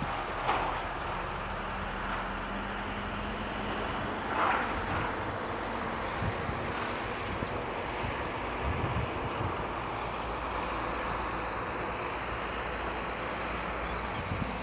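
Distant GE C36-7i diesel-electric locomotives running under power as they pull away, a low steady drone. Two brief louder noises come about half a second and four and a half seconds in.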